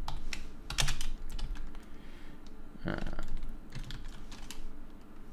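Computer keyboard typing: irregular clusters of keystrokes as a line of code is entered.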